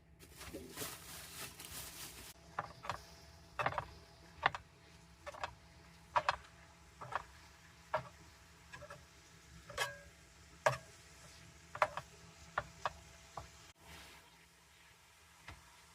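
Cooking utensils clicking and knocking while food is prepared. A short hiss comes first, then irregular sharp clicks, about one or two a second, some with a slight ring.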